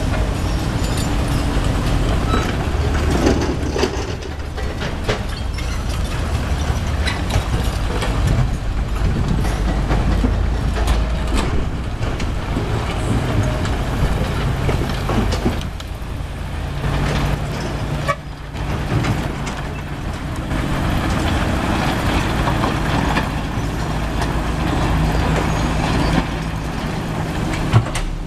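Komatsu GD555 motor grader's diesel engine running steadily under load while its blade pushes crushed rock, with frequent clattering of stones. A sharp knock near the end.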